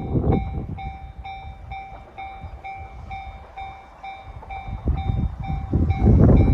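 Japanese level-crossing warning bell ringing in a steady, rapid ding-ding while steam locomotive C57 180 approaches. A heavy exhaust beat comes about a third of a second in, and the engine's running noise grows louder over the last second or two.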